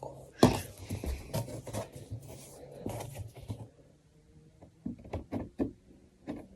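Irregular knocks, bumps and scrapes of a flat-pack shoe cabinet's panels being handled and shifted into place, busier at first, then a few separate knocks in the second half.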